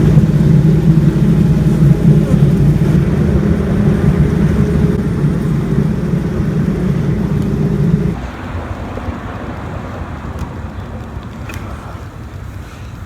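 Honeybees buzzing, a steady loud hum that drops in level about eight seconds in.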